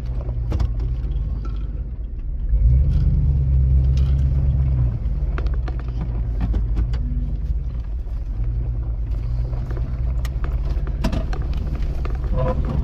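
Off-road vehicle on 35-inch tyres crawling a rough dirt trail, heard from inside the cab: a steady low engine and drivetrain rumble that grows louder for a couple of seconds from about three seconds in. Scattered knocks and rattles come from the bumpy ground.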